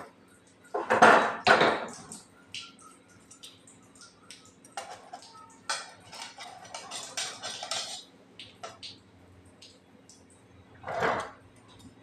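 Kitchen utensils clinking and knocking in short, scattered clatters, with two louder bursts, one about a second in and one near the end.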